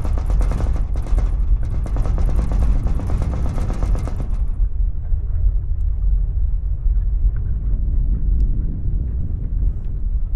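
Low earthquake rumble with the fast rattling of loose objects in a room; the rattling stops abruptly about four and a half seconds in, leaving only the deep rumble.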